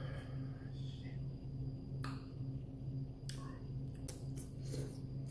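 A person eating noodles: wet chewing and mouth noises, with several short sharp clicks toward the end, over a steady low electrical hum.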